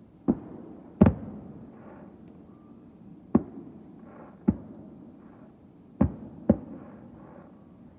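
Aerial fireworks going off: six sharp booms spaced irregularly over about eight seconds, the loudest about a second in. Each is followed by a rumbling echo.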